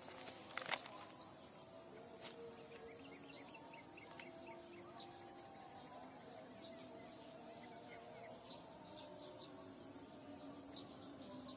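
Birds chirping in many short, quick, falling calls over a steady high-pitched insect drone. A couple of sharp clicks sound right at the start.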